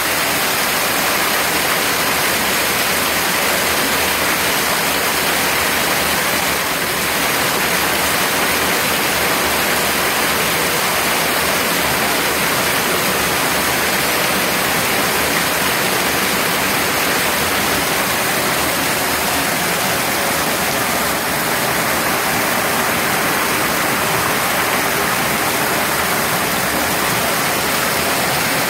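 Water rushing steadily into a flood test tank, flooding the floor around sandbags stacked against a door.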